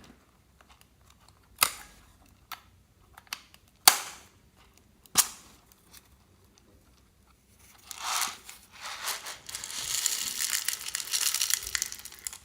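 Crunchy slime mixed with foam beads being pressed and squished by hand: a few sharp popping snaps, then from about eight seconds a dense, continuous crackling of the beads.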